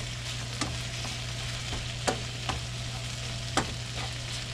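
Sliced porcini mushrooms and onions sizzling in olive oil in a frying pan, stirred with a wooden spatula that knocks against the pan about five times. A steady low hum runs underneath.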